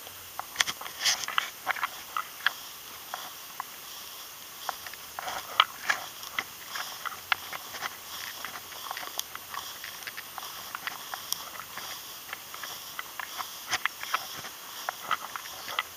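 Footsteps crunching and swishing through dry grass, an irregular run of short crackles.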